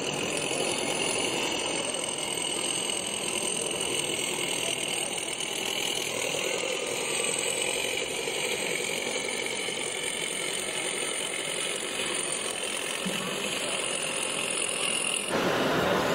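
Radio-controlled model crawler bulldozer running while it pushes sand, with a steady high whine from its drive and a rattle from its tracks. The sound stops abruptly near the end.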